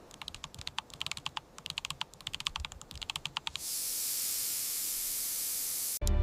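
Rapid, irregular clicking, like keys being typed. About three and a half seconds in, it gives way to a steady high hiss.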